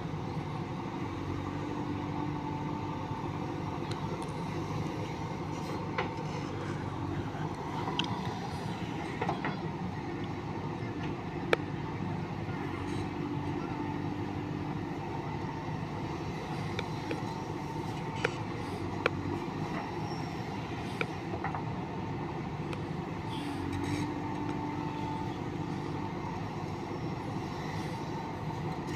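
Diesel engine of a JCB 3DX backhoe loader running steadily at work. A higher tone swells in spells about every eleven seconds, and there are scattered sharp metallic clanks, the loudest near the middle.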